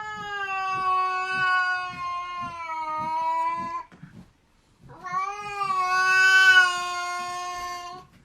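A cat yowling: two long, drawn-out howls, the first about four seconds and the second about three, with a short pause between.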